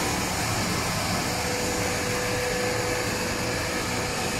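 Continuous frying machine's gas burner and oil pumps running together under test: a steady whooshing machine hum with a faint constant tone, all units running normally.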